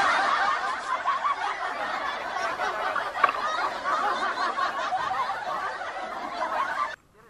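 Sea water sloshing and splashing over a camera held at the water's surface, a dense bubbling wash that cuts off suddenly near the end.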